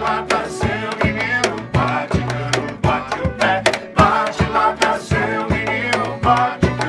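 Live acoustic song: a man sings lead over a strummed acoustic guitar, with a steady percussion beat.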